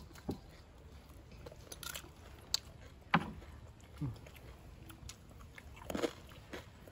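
A person chewing food close to the microphone, with wet mouth sounds and a few short sharp clicks and crunches scattered through.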